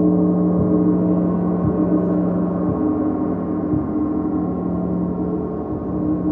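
A gong played continuously with soft mallet strikes about once a second, keeping up a steady, dense, humming wash of overlapping tones.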